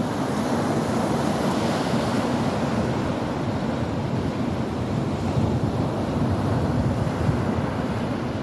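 Ocean surf: a steady wash of waves breaking and rushing in, with a brighter hiss of foam in the first second or two.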